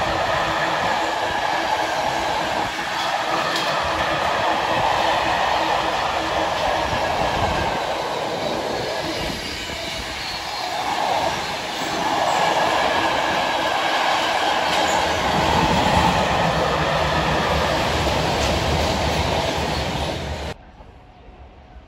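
A freight train of empty container flat wagons passing at speed: a steady loud rush of steel wheels on rail, with some clatter and a ringing from the wheels. The sound drops away suddenly near the end.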